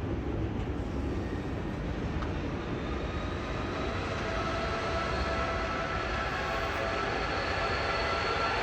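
Train running on the harbour tracks, a steady rumble with a whine that comes in about three seconds in and grows louder.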